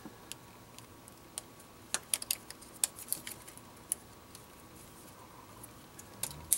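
Small sharp plastic clicks and taps as an electrical connector is worked onto a fuel injector of a 2.4 L Ecotec engine, scattered through, with a quick run of them around two to three seconds in.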